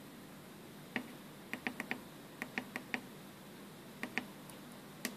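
Small tactile push-button switches on a DSO138 oscilloscope kit clicking as they are pressed repeatedly to step the trigger level, about a dozen sharp clicks in quick runs of two to four.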